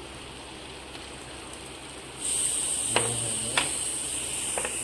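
Raw buffalo meat pushed off a plate with a spatula into a pressure cooker of onions frying in oil. About two seconds in, a steady sizzle starts as the meat lands in the hot oil. The spatula knocks against the plate or pot three times.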